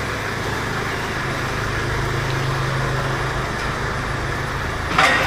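An engine running steadily at idle, with a low hum, and one sharp knock about five seconds in.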